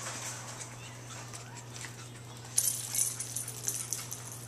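Chihuahua puppies playing on a tile floor: a fast patter of claws clicking on the tiles starts a little past halfway, with faint puppy whimpers.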